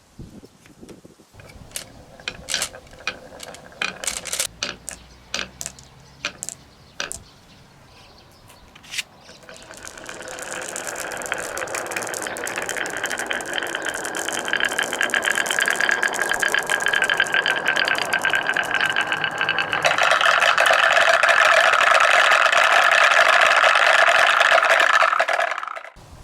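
Marbles rolling and clacking down a wooden marble run. At first there are scattered single clicks. From about ten seconds in, many marbles rattle together in a dense, steady stream, which grows louder about twenty seconds in and stops suddenly shortly before the end.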